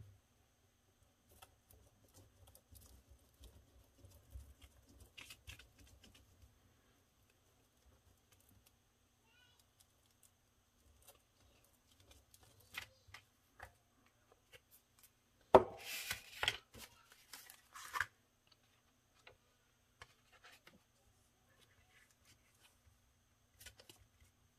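Glue stick rubbed over cardstock, with faint scuffs and taps. About two-thirds of the way through, paper sheets are handled with a loud rustle and crinkle lasting a couple of seconds.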